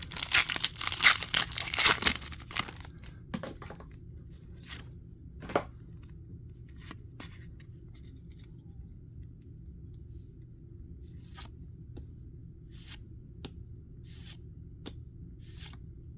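Foil wrapper of a Pokémon TCG booster pack torn open and crinkled for the first few seconds, then a series of short, separate soft flicks as the cards are slid through one by one.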